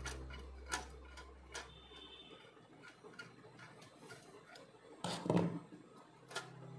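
Scattered light clicks and taps of small metal parts and a tool being handled while an electric iron is taken apart, with a louder clatter about five seconds in. Faint background music fades out near the start.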